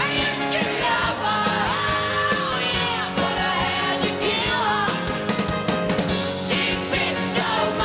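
Live rock band performing a song with a male lead singer's voice sliding over guitars, keyboards and a steady beat, recorded at a concert.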